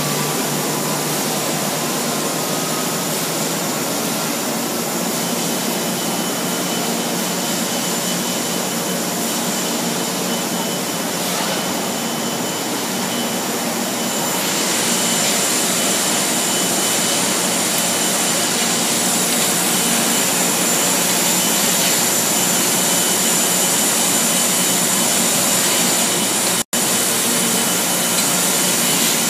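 TEAM TD560-7 seven-block wire drawing machine running: a loud, steady mechanical noise of its spinning capstan blocks and drive motors, with a thin steady high whine. The hiss grows brighter and a little louder about halfway through, and the sound drops out for an instant near the end.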